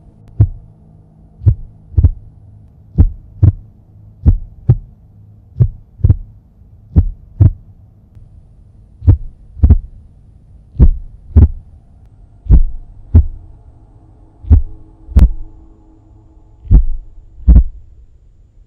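Heartbeat sound effect: paired lub-dub thumps over a low steady drone, the pairs spacing out so the beat slows toward the end.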